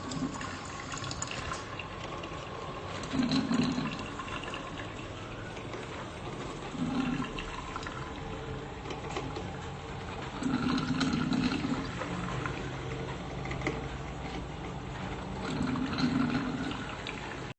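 Drip coffee maker brewing: a steady hiss of water, with a louder gurgle four times, every three to five seconds.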